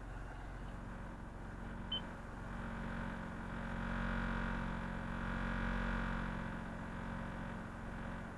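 Vehicle running slowly with a steady droning hum that swells for a few seconds in the middle and then eases; a short high beep about two seconds in. This is the odd noise the vehicle makes only on the driveway.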